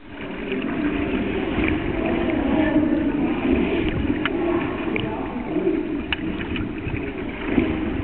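Muffled underwater sound through a submerged camera: a steady low rumble of water stirred by a capsized kayaker, with a few faint clicks.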